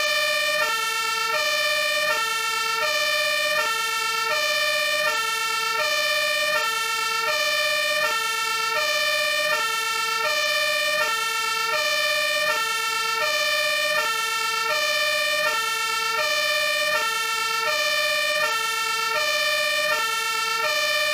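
Fire engine two-tone siren, alternating steadily between a lower and a higher pitch, each tone held for about three quarters of a second.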